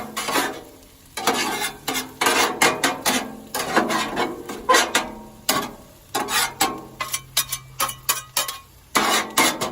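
Metal spatula scraping and turning fried potatoes and onions on a Blackstone flat-top steel griddle, in quick irregular strokes.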